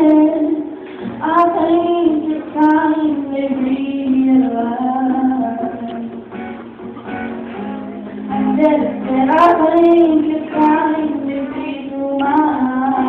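A girl singing a slow song solo, holding long notes that glide between pitches.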